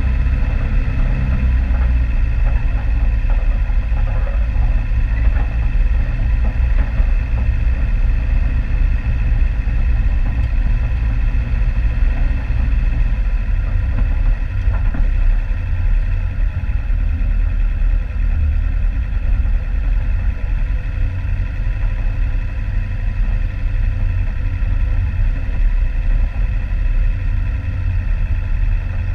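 Off-road vehicle engine running steadily on a rough track, its note shifting about halfway through.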